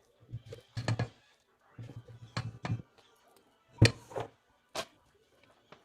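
A series of separate sharp knocks and clicks from kitchen work, about seven in six seconds, several with a dull thud; the loudest comes near the four-second mark.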